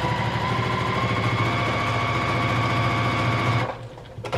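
Sewing machine stitching a seam at a steady speed, its motor whine and needle running evenly, then stopping about three and a half seconds in.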